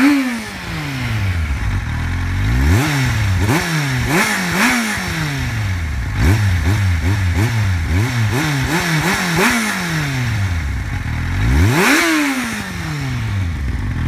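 2009 Kawasaki Z750's 748 cc inline-four engine, revved while stationary through its stock exhaust. It gives a series of quick throttle blips, each rising sharply and falling back, then one longer rev near the end before it drops back to a steady idle.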